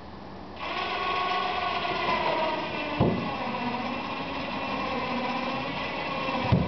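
Winch motor of a homemade self-loading boat rack starting about half a second in and running steadily as it hoists a small boat bow-first, with two knocks, about three seconds in and near the end.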